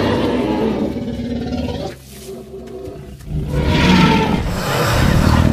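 Film sound effect of a Tyrannosaurus rex roaring twice: a long roar that fades out about two seconds in, then a second one rising from about three and a half seconds in.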